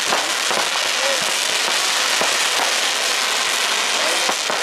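Fireworks going off: a dense, steady crackle with several sharp pops and bangs scattered through it.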